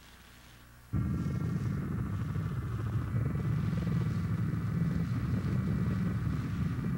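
A loud, steady rumbling drone with a cluster of high whining tones on top cuts in abruptly about a second in and holds without change.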